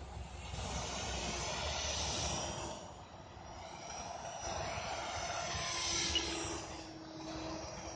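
Align T-Rex 500 electric RC helicopter in flight: rotor noise under a high, steady motor-and-gear whine. It swells louder twice as the helicopter passes by.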